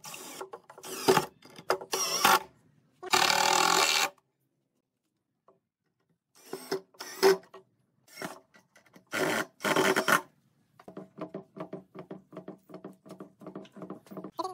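A Maktec cordless drill running in short bursts as it drives screws into pine boards, the longest run lasting about a second. In the last few seconds there is a quieter run of rapid, even ticks.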